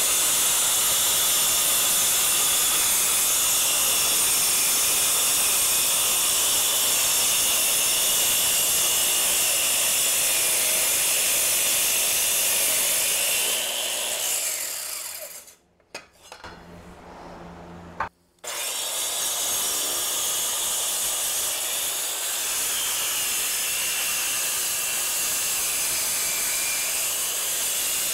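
Black & Decker sidewinder circular saw with a segmented diamond blade cutting concrete wet, a loud steady grinding whine. About halfway through it winds down and drops out for a few seconds, then comes back at full speed and cuts on.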